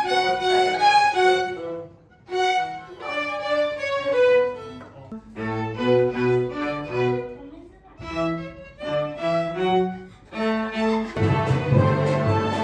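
Youth orchestra string players practising: violins play a melody in short phrases broken off by brief gaps. About eleven seconds in, lower strings join in a fuller ensemble sound.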